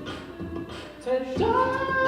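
A cappella group singing, voices only. Softer held vocal lines give way about a second and a half in to a loud, sustained chord of several voices.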